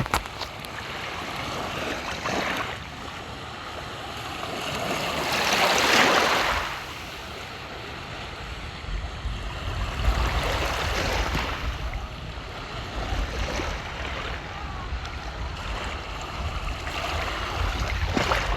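Seawater washing at the shore: small waves swell and recede, the loudest wash peaking about six seconds in and another around ten seconds. A low rumble sits underneath in the second half.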